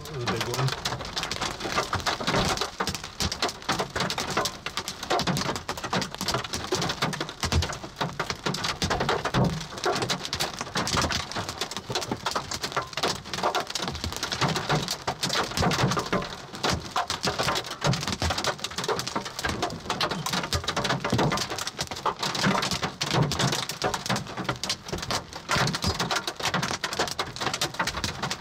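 Large hail pelting a Subaru Crosstrek's roof and windshield, heard from inside the cabin: a dense, unbroken clatter of hard impacts mixed with pouring rain.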